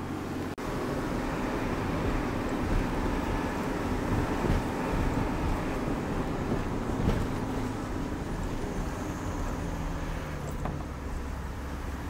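Truck engine running with road and wind noise, heard from aboard the moving truck, with a sharp knock about seven seconds in.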